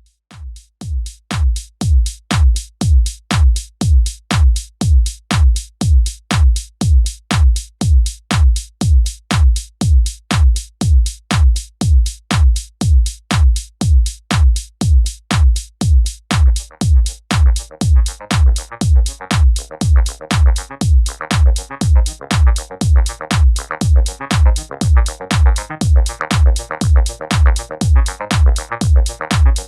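Electronic background music with a steady drum-machine kick at about two beats a second; synth layers come in about halfway through.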